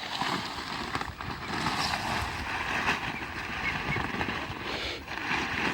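Steady rustling noise, mixed with wind buffeting the microphone.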